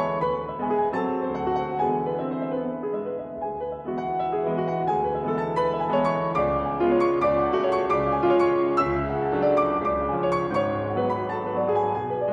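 Background piano music, with notes played at an even pace.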